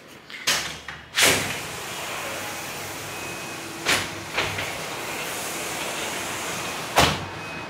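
Sliding glass balcony door panels being pushed open along their tracks, with sharp knocks about a second in, twice near the middle, and a loud one near the end. A steady outdoor hum comes in once the door is open.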